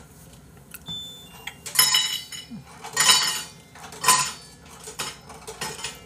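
Dishes and cutlery clattering in a few short bursts about a second apart, with brief ringing clinks between them.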